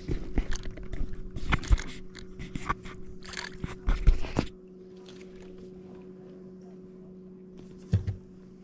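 A small crappie being landed and handled on a boat: a dense run of irregular clicks, knocks and scrapes for about four and a half seconds, then a single knock near the end, over a steady low hum.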